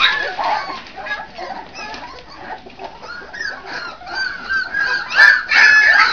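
Miniature bull terrier puppies yelping and squealing in quick, short high cries, with a louder run of squeals about five seconds in.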